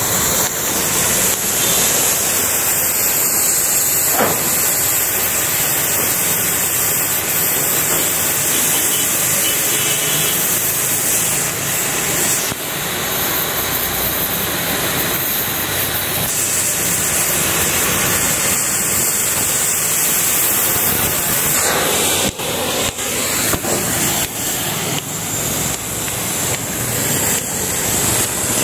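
Gas cutting torch hissing steadily as it cuts a line through steel plate. From about three-quarters of the way through, a series of sharp clicks comes in over the hiss.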